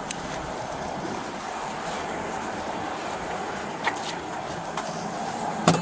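A steady rushing noise, like wind or distant traffic, broken by a few sharp clicks, the loudest near the end.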